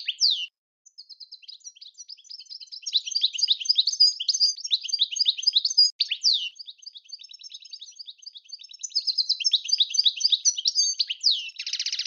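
European goldfinch singing: a fast twittering run of short high notes, with a few down-slurred notes and a short buzzy note near the end.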